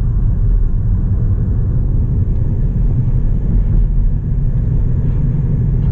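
Hyundai Elantra being driven on the road: a steady low rumble of engine and tyre noise.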